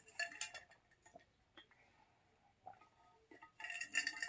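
Faint crackly clicks of someone chewing a crunchy taco: a short run near the start, then a denser run near the end, closing with a sharp clink that rings briefly, like a utensil or dish being knocked.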